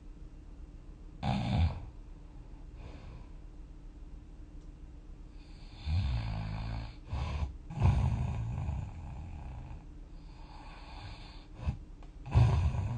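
A sleeper snoring while dozing: loud snores come every few seconds, with quieter breathing between them.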